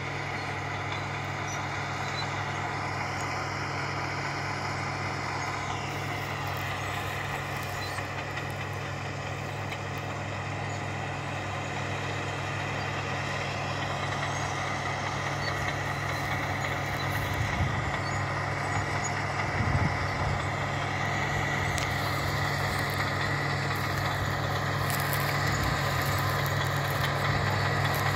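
Caterpillar D6 crawler tractor's diesel engine running steadily under load while pulling a reversible two-furrow plough, with a high steady whine over it. It grows slowly louder as the tractor draws nearer, with a few knocks about two-thirds of the way through.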